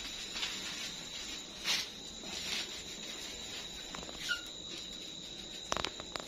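Soft rustling swishes of dry fishing bait (puffed rice, flattened rice and spice mix) being mixed by hand, over a steady high-pitched whine. A short high squeak comes about four seconds in, and a few sharp clicks near the end.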